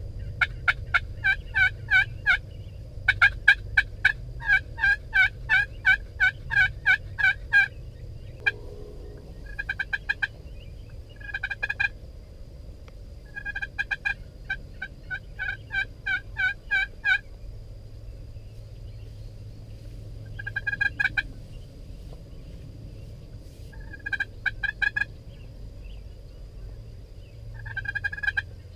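Turkeys calling. Two long runs of rapid, evenly spaced notes come in the first eight seconds, followed by shorter bursts of calls every few seconds.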